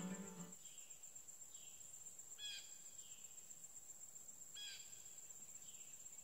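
Acoustic guitar music fading out in the first half second, then faint outdoor ambience: a steady high insect drone, with a short bird call twice, about two and a half and four and a half seconds in.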